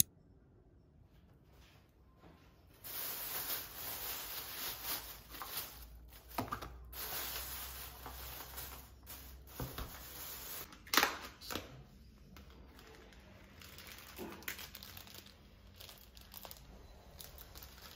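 Plastic takeout packaging being unwrapped: a plastic bag and clear plastic lids crinkling, with a sealing label torn off and clicks of plastic being handled. It starts after about three seconds, and one sharp snap near eleven seconds in is the loudest. It then goes on more softly.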